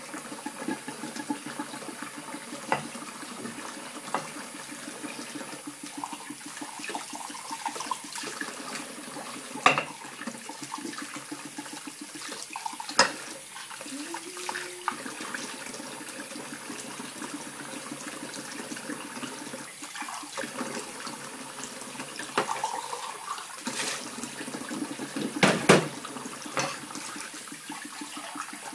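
Kitchen tap running steadily into a sink while dishes are washed by hand, with scattered clinks and knocks of glassware and a metal bowl being handled, the loudest two close together near the end. A short squeak about halfway in.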